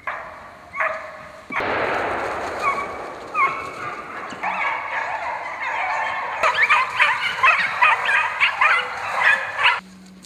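Hunting dogs yelping and baying on wild boar, in many short, high-pitched cries. The cries grow denser and more overlapping about six seconds in and cut off abruptly near the end.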